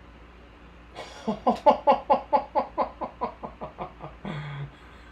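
A man laughing excitedly: a rapid run of about a dozen 'ha' bursts, four or five a second, that fade as they go, then a short held vocal sound near the end.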